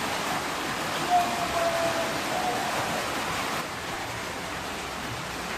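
Steady pouring rain, an even hiss. A faint drawn-out call sounds over it about a second in, and the rain drops a little in level past halfway.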